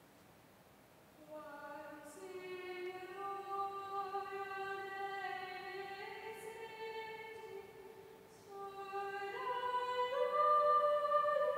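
A single high young voice from a cathedral children's choir singing a carol melody unaccompanied. It begins about a second in and runs in two phrases with a breath between them, the second louder. The sound carries the long reverberation of a large stone church.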